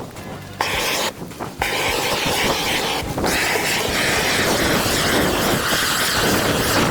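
Loud, steady rushing noise that cuts out and comes back abruptly twice in the first second and a half, with another brief drop about three seconds in.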